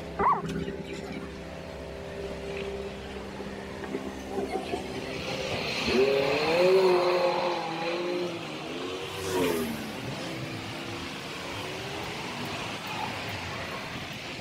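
Street traffic: a motor vehicle's engine drones steadily, then from about six seconds in rises and falls in pitch as it accelerates past, loudest around the middle. A brief high squeal sounds right at the start.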